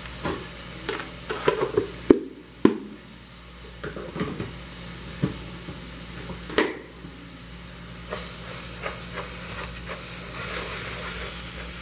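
Raw rice and leek frying in oil in a pot, sizzling while a spoon stirs and scrapes it, with a few sharp knocks against the pot. The sizzle and crackle grow louder about eight seconds in.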